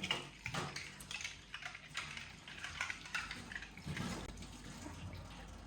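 Water running and splashing at a kitchen sink, with dishes and utensils clinking irregularly.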